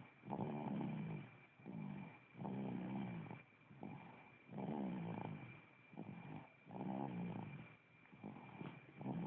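Snoring in a steady rhythm: a loud, rattling snore about every two seconds, each lasting about a second, with a softer breath between.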